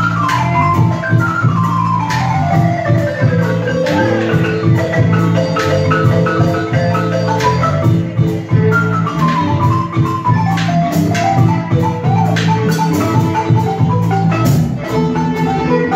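Balafon, a gourd-resonated wooden xylophone, played with mallets in fast runs of notes that sweep down and back up again. A steady bass line and percussion run underneath.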